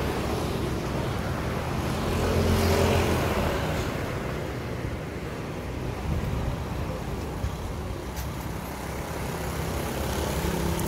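Road traffic going by: motor vehicle engines humming, with one vehicle passing louder about two to three seconds in.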